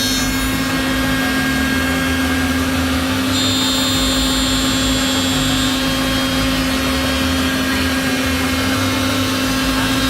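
Three-head CNC mortising machine running, its router spindle motors giving a steady mechanical hum with high whining tones; a higher whine comes in for a few seconds near the middle.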